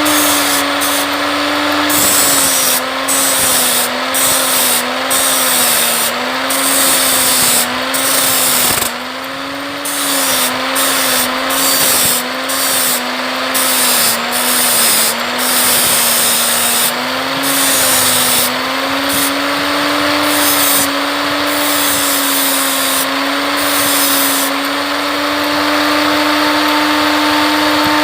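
Angle grinder with a 60-grit flap disc grinding small bumps off a speaker part. The motor's pitch dips and wavers each time the disc is pressed on, and the grinding hiss starts and stops many times. Near the end the grinder runs free at a steady pitch.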